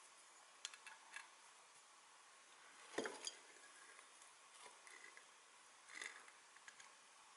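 Near silence broken by a few faint metallic clicks of pliers gripping and working a small metal clock part. The sharpest click comes about three seconds in, and another small cluster about six seconds in.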